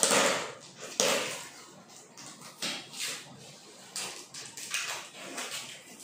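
Packaging of a YouTube Silver Play Button being opened and its black case pulled out: two louder scrapes near the start, then a string of shorter rustles and scrapes.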